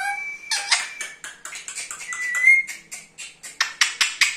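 Indian ringneck parakeet giving a held whistle and a short rising whistle, with scattered clicks. A fast run of sharp clicks, about four a second, starts near the end.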